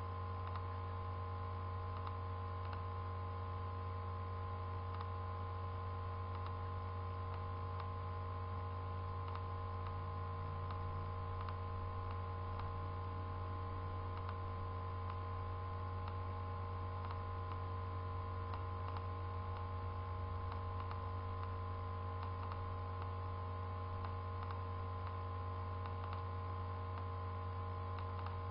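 Steady low hum with several fainter steady tones above it, and faint computer mouse clicks now and then as lines are drawn in Paint.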